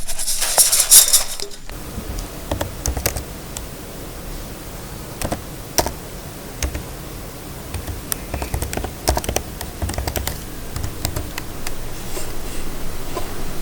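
A loud rushing noise for the first second and a half, then typing on a computer keyboard: irregular key clicks over a low background rumble.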